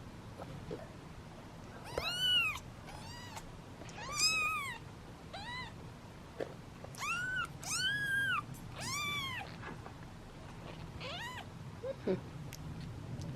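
Young British Shorthair kittens meowing, hungry and impatient for their feeding: about eight short, high-pitched meows that each rise and fall in pitch, coming one after another over several seconds.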